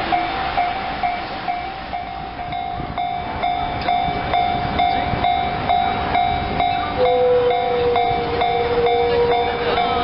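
Railway level-crossing alarm ringing its repeated electronic clang, about two to three strokes a second. From about seven seconds in, a long steady lower tone joins it.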